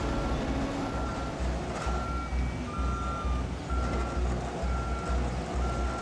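Truck backup alarm beeping at a steady pace, about one beep a second, over the low rumble of the truck's engine.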